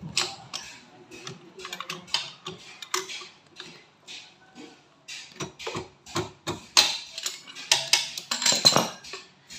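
Metal hand tools and CVT parts of a Honda ADV 160 scooter clinking and knocking irregularly during reassembly of the transmission, with the loudest knocks near the end.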